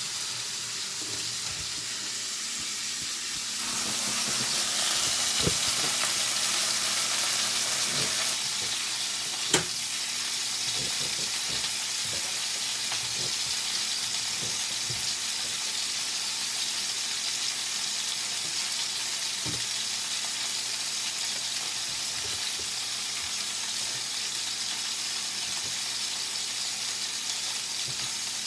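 Kitchen tap running briefly, then a New York strip steak sizzling in hot oil in a skillet: a steady frying hiss with scattered small pops, and one sharp click about nine seconds in.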